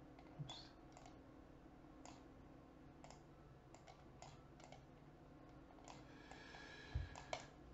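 Faint computer mouse clicks, a dozen or so scattered irregularly, over a low steady room hum, as on-screen items are clicked and dragged.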